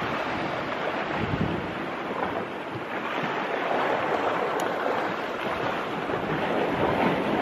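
Sea waves washing on the rocks, mixed with wind blowing across the microphone: a steady rush of noise with no distinct events.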